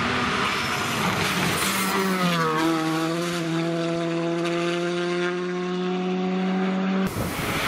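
Rally car passing at speed: a rushing engine and tyre noise as it comes by, then the engine note drops and holds a steady pitch as the car pulls away. Near the end it cuts abruptly to another rally car's engine.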